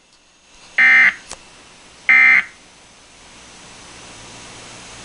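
Weather radio sending two short, buzzy digital data bursts about a second apart, the end-of-message code that closes an alert bulletin, then a faint hiss of radio static.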